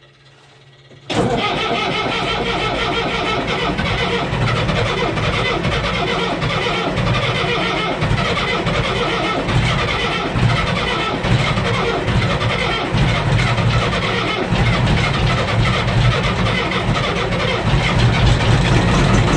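International backhoe's diesel engine starting on a cold start after sitting all winter: it fires suddenly about a second in, then keeps running steadily, getting a little louder near the end.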